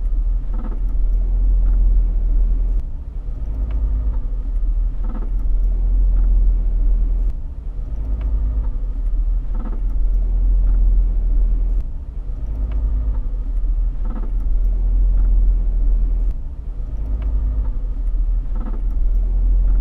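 2010 Mitsubishi Outlander making a sharp cracking click that comes back every few seconds over a heavy low rumble from the vehicle. The cause of the cracking is unknown to the owner.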